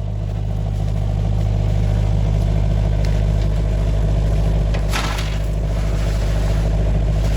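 Engine running steadily at an even speed, a loud low hum, with a few short knocks about five seconds in.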